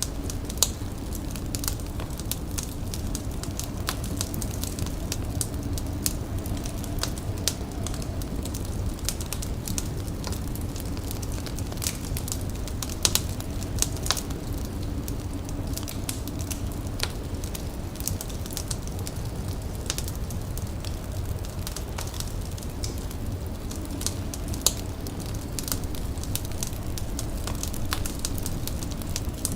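Wood fire crackling, with scattered sharp pops over a steady low rumble.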